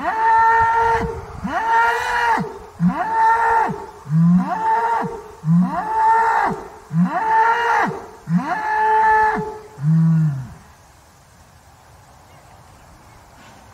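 A bull bellowing about eight times in a row, one call every second and a half or so. Each call lasts about a second and rises and falls in pitch. The calls stop about ten seconds in.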